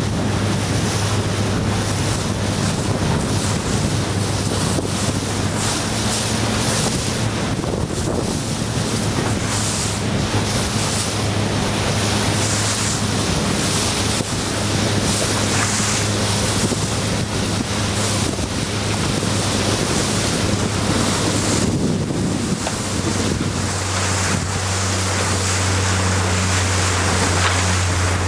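Strong wind buffeting the microphone over rushing, splashing water, with the steady low hum of the RIB's outboard motor underneath. The engine note shifts slightly near the end.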